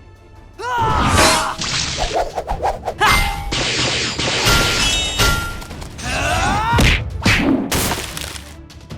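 Cartoon sound effects for an animated fight: a rapid string of hits, thuds and crashes with short ringing dings and whooshes, mixed with short pitched sounds that slide up and down.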